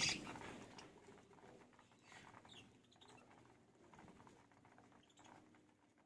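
Flock of budgerigars pecking at millet seed in a tray: a faint, continuous patter of small clicks, with a few brief chirps. A louder burst of chirping fades away at the very start.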